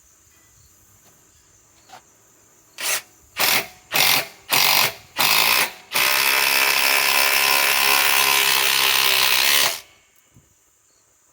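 Ryobi compact impact wrench driving a fastener on speed 3: five short trigger pulses to start it, then a continuous run of about four seconds that cuts off sharply.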